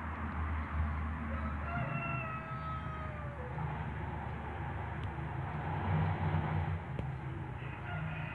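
A rooster crowing: one long crow about two seconds in, sliding slightly down in pitch, and a second crow starting near the end, over a steady low rumble.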